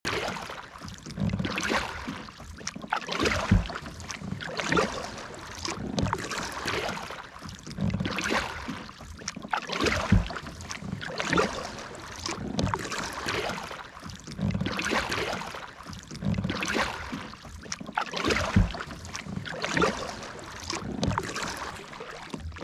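Water splashing and sloshing in a regular rhythm, one surge about every second and a half, some with a low thump.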